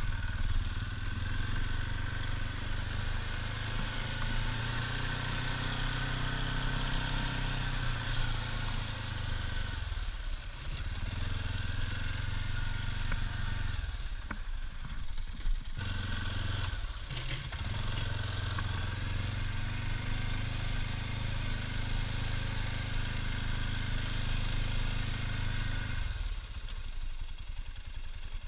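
ATV engine running under load while pushing a plow, its revs steady for long stretches and easing off briefly a few times; near the end it drops back to a lower, quieter note.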